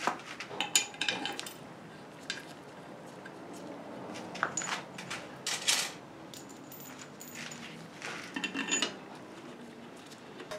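Loose steel hardware clinking and rattling in three bunches of light metallic clicks, some with a short ring, as a Model T engine's cylinder head is being bolted down.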